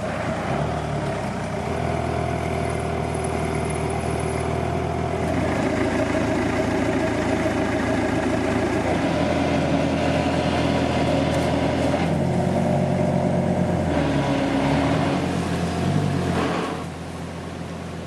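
Off-road 4x4 engine running, its revs rising and falling several times, then dropping back to a lower, quieter run near the end.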